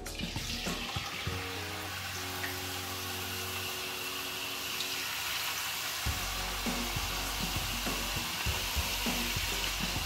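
Parboiled potato chips dropped into very hot oil in a frying pan, sizzling steadily as they deep-fry.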